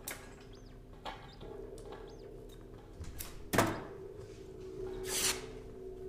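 Improvised experimental music from a drum kit and electronics: a steady low electronic drone with short high chirping glides over it, broken by sparse sharp hits. The loudest hit comes about three and a half seconds in, and a swell of noise follows near five seconds.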